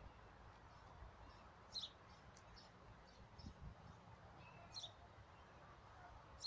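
Faint bird chirps, a short high call every few seconds with smaller chirps in between, over a quiet outdoor background.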